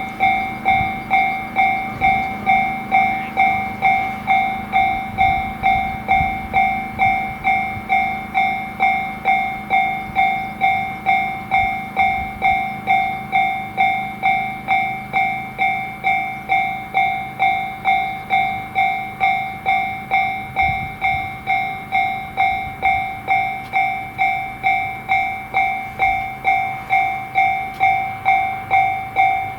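Japanese railroad crossing alarm ringing its 'kan-kan' bell about twice a second at a steady, even pace. A low rumble of a train passing runs under it, strongest in the first half.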